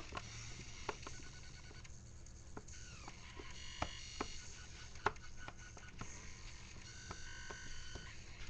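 Electronic music triggered live from an LED pad grid controller: short beeping synth tones that start and stop every second or so, with irregular sharp clicks, heard faintly through a small room.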